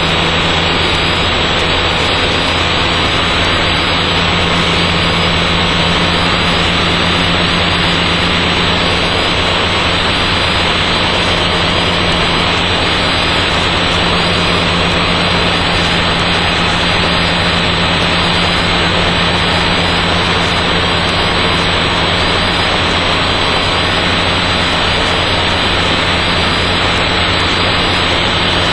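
Mazda rotary engine and propeller droning steadily in cruise flight, with wind and airframe noise, heard through the aircraft's intercom with the highs cut off.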